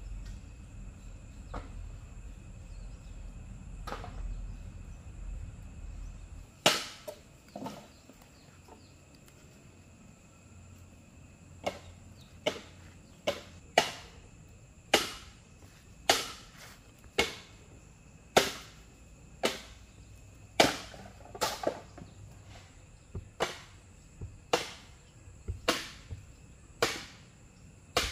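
Repeated sharp knocks of something being struck, roughly one a second, beginning after an isolated knock or two and going on to the end; a steady high insect drone runs underneath.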